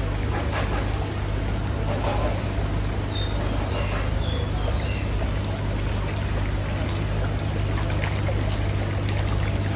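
Water running and splashing into live seafood tanks from their circulation pipes, a steady trickling wash over a constant low hum.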